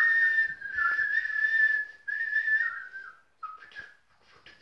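A high whistling tone, held and wavering and dipping in pitch, that breaks off a little past three seconds, followed by a few short faint whistles.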